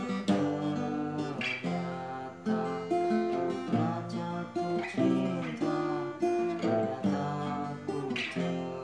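Acoustic guitar strummed in chords, with a fresh stroke every fraction of a second and the chords ringing between strokes.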